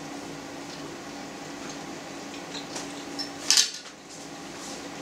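A metal fork set down with a single sharp clink on a ceramic plate about three and a half seconds in, over a faint low hum.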